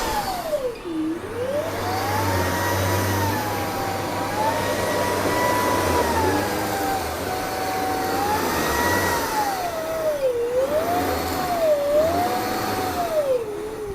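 LG R9 robot vacuum running, its motor whine sweeping down in pitch and back up again and again, more often near the end.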